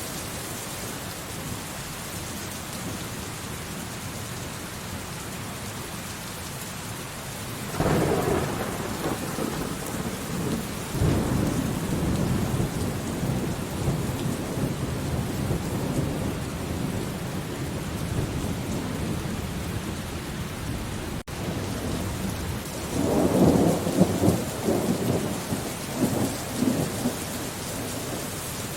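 Steady rain falling, with two rolls of thunder: one breaks suddenly about eight seconds in and rumbles on for several seconds, and a second, louder one comes near the end.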